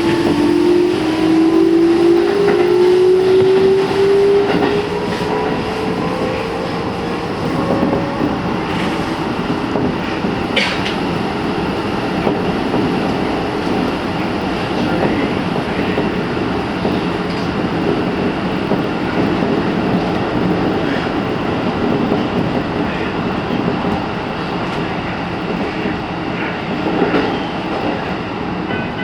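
Keikyu New 1000 series electric train heard from inside the car as it accelerates: the traction motors give a whine that climbs in pitch over the first several seconds and then fades. After that comes steady running noise of wheels on rail with occasional faint clicks.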